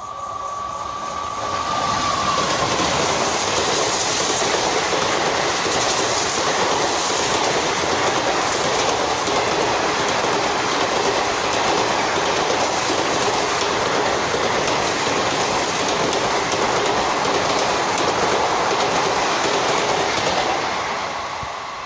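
Express passenger train hauled by a WAP-4 electric locomotive passing close at speed: steady wheel-on-rail noise from its coaches. It builds over the first two seconds as the train arrives and dies away near the end as the last coach goes by.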